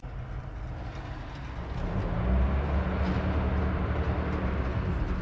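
Motor vehicle rumbling past: a low, steady engine drone that swells about two seconds in and holds.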